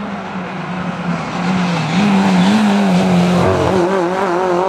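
Rally car engine running hard at high revs, its pitch wavering slightly with the throttle, with tyre and road noise. It gets louder about two seconds in as the car comes close and passes.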